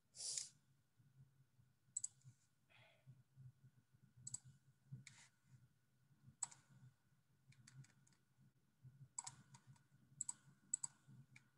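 Faint, scattered clicks of a computer mouse and keyboard over near silence and a faint steady hum, with a quick run of clicks near the end.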